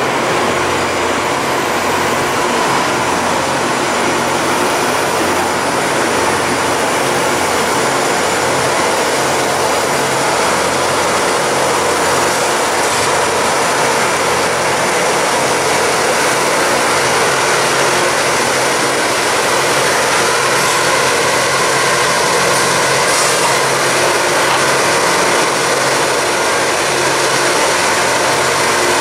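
Loram rail grinder working along the track: a loud, steady grinding noise from its grinding stones on the rail, over a low diesel engine drone, growing slowly louder as the train comes closer.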